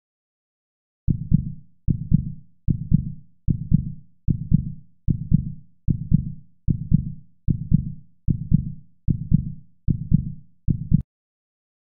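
Heartbeat sound effect: a low double thump repeated about every 0.8 seconds, thirteen beats in all, starting about a second in and stopping abruptly near the end. It marks a quiz's ten-second answer countdown.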